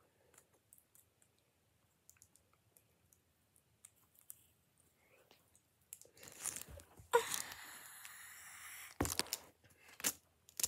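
Light clicks of plastic Lego pieces being handled. About six seconds in, louder rustling and clattering, ending with two sharp knocks about a second apart.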